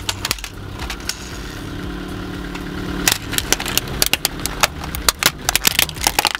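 Car engine running slowly and steadily as the car creeps forward. From about three seconds in, a rapid run of sharp cracks and snaps as the tyre crushes a plastic toy top.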